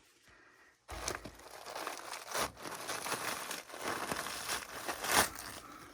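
Old empty paper wasp nest being pulled off and broken apart: irregular crinkling, crackling and tearing of the dry papery comb. It starts about a second in, with the sharpest crack near the end.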